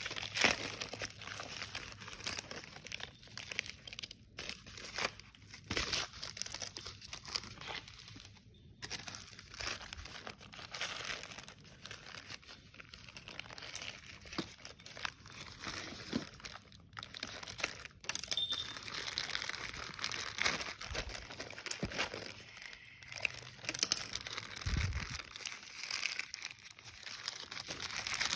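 Packaging being crinkled and handled by hand: a continuous run of crackly rustling, with some tearing, as a parcel is unwrapped.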